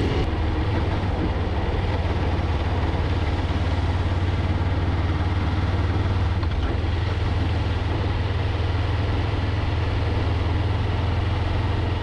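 A car driving steadily along a road: an even low engine drone with tyre and road noise.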